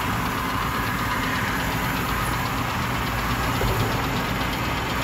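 Steady mechanical rumble and hiss of an indoor shooting range, with no gunshots.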